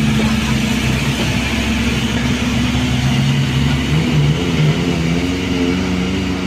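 Diesel engine of a light truck loaded with logs, pulling away under load. It runs steadily, then rises in pitch from about five seconds in as the engine revs up.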